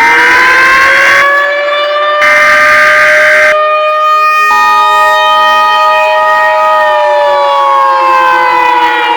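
A civil defense siren that has just wound up holds its pitch and winds down near the end. Over it, twice in the first few seconds, come the screeching data bursts of an Emergency Alert System header. About four and a half seconds in, the steady two-tone EAS attention signal begins.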